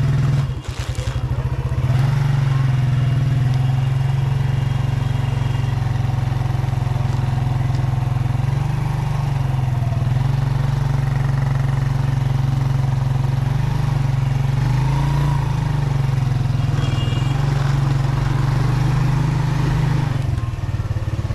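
Motorcycle engine running steadily; it dips briefly about half a second in and picks up again about two seconds in.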